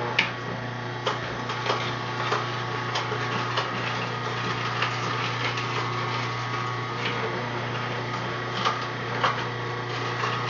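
Omega masticating juicer running with a steady low motor hum, with irregular sharp clicks and knocks scattered throughout.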